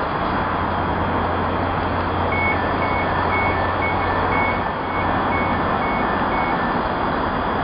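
Class 385 electric multiple unit standing at a platform with its equipment humming steadily, while its door warning beeps sound about ten times, alternating high and low, from about two seconds in to near the end.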